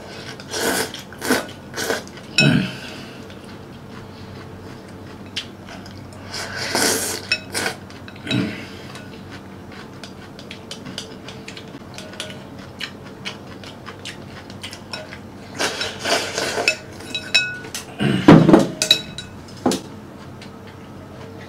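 Wooden chopsticks clinking and scraping against a porcelain bowl while instant noodles are eaten, with short noisy slurps in between. The loudest knocks come near the end.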